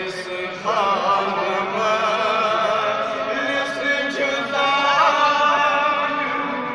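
Men's voices chanting a melodic refrain, with long held notes that waver and glide in ornamented turns.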